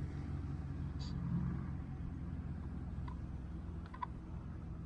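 A motor engine running steadily at constant speed, a low drone that eases off slightly near the end, with a few faint clicks.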